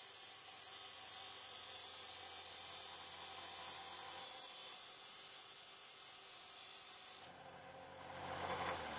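The end of a threaded steel rod, spun in a cordless drill, ground against a spinning sanding disc to sharpen it to a point: a steady high grinding hiss. The hiss cuts off abruptly about seven seconds in, then a shorter swell of lower, coarser noise rises near the end.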